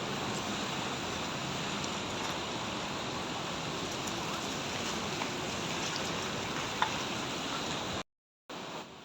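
Steady rush of falling water from a mountain waterfall, a dense even hiss that cuts off abruptly near the end.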